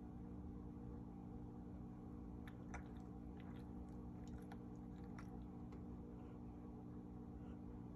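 Faint steady low hum, with a scatter of small soft clicks and smacks from about two and a half to six seconds in.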